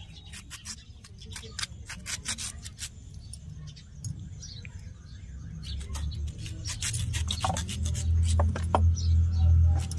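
Knife chopping a tomato on a cutting board: a run of sharp taps that thins out around the middle and picks up again, with a low rumble swelling through the second half and loudest near the end.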